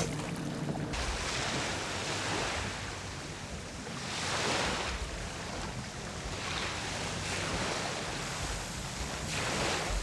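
Small waves washing in on a lakeshore, swelling and falling every two to three seconds, with wind on the microphone.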